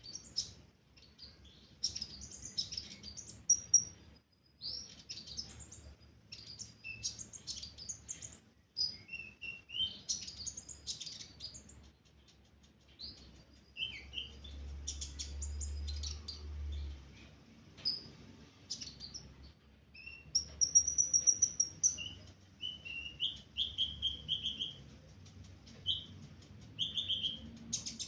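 The small songbird sold in Indonesia as the 'ninja hummingbird' singing. It gives quick runs of high chirps and twitters broken by short pauses, and later in the passage thinner repeated whistled notes.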